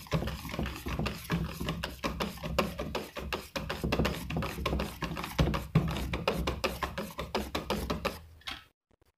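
Wire whisk beating thick idli batter in a steel pot: rapid, uneven strokes of wet slapping and metal scraping, several a second, stopping abruptly near the end.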